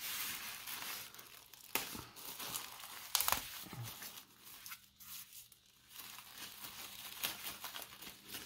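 A small white packaging bag being torn open and crinkled by hand: a run of crackles with a few sharp snaps, the loudest about three seconds in.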